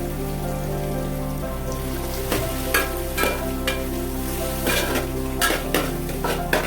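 Chopped onions, shallots, green chillies and curry leaves sizzling in hot coconut oil in an uruli, with a spoon stirring and clinking against the pot from about two seconds in.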